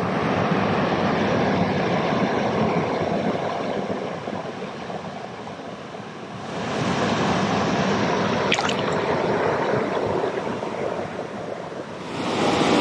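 Small mountain stream rushing and gurgling over rocks, a steady wash of water noise that eases for a couple of seconds midway and then comes back up.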